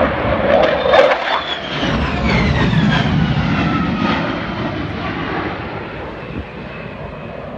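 F/A-18 Hornet jet flying past, loudest about a second in, its whine falling in pitch as it goes by and fading over the last few seconds.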